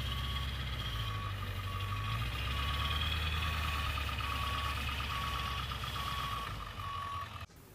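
Overland truck's engine running with a low rumble as it backs up slowly, while its backup alarm beeps steadily, a little less than twice a second. The sound cuts off abruptly near the end.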